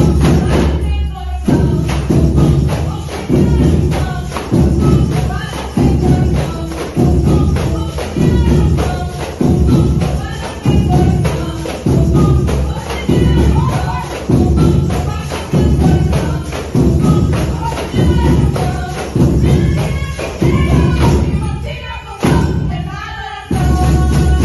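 Percussion band playing with tambourines along to a sung song, the drums beating about once every 0.8 seconds. The beat drops out briefly near the end, then comes back.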